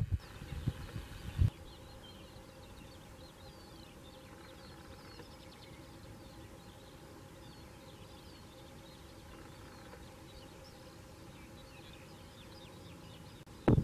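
Quiet open-air ambience with birds chirping in the background. Wind buffets the microphone for about the first second and a half.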